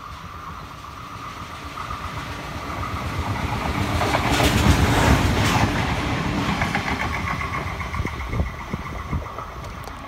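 NSW 620/720 class diesel railmotor set passing through without stopping: engine and wheel noise build to a peak about five seconds in as it goes by, then fade, with the clicking of wheels over the rails near the end.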